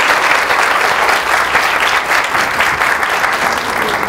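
Audience applauding at the end of a lecture: steady, dense clapping from a room full of people, easing off just as it ends.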